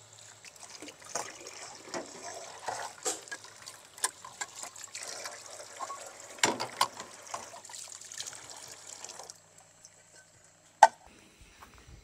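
Water running and trickling, with irregular small clinks and clatter, stopping about nine seconds in; a single sharp knock near the end is the loudest sound.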